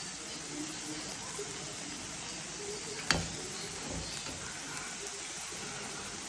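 Potatoes deep-frying in olive oil, a steady sizzle, with one sharp click about three seconds in.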